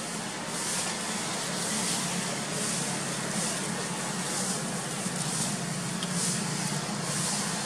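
Steady outdoor ambience: a constant low hum under a high-pitched hiss that swells and fades about once a second.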